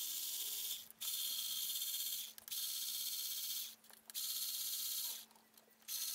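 Cordless electric ratchet running in repeated bursts of about a second each, with short pauses between, spinning out the oil rail bolts one after another after they have been cracked loose by hand.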